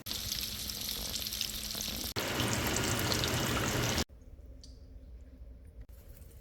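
Deviled eggs frying in hot oil, a steady sizzle with crackling pops. It stops abruptly about four seconds in, leaving only a faint background.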